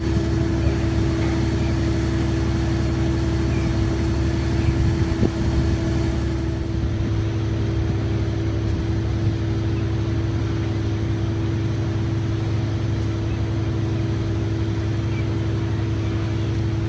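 Fishing boat's diesel engine running steadily: a low, even drone with a constant hum.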